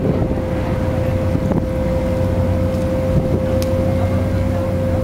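Ferry's engine running steadily, heard on board: a constant low drone with one steady, higher humming tone over it.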